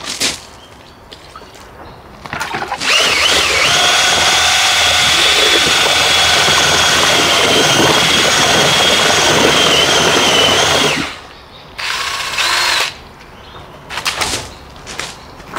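Electric drill driving a paddle mixer, stirring Expando expanding cracking agent into a slurry: it runs at a steady speed with a constant whine for about eight seconds, stops, then gives one short second burst.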